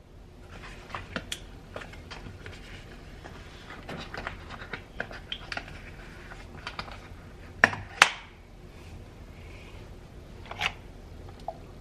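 Light taps and clicks of kitchen items being handled on a stone countertop: a coconut milk carton, a mug and an electric milk frother. Two sharper clacks come close together about eight seconds in, and another about two and a half seconds later.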